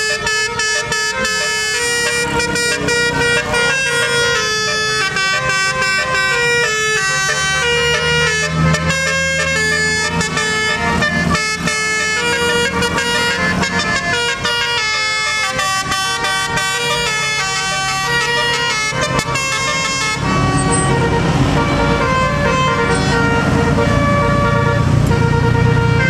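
Bus telolet horn playing a quick melody of short, stepping multi-tone notes. About twenty seconds in the tune stops and heavier engine rumble takes over, with steadier horn tones.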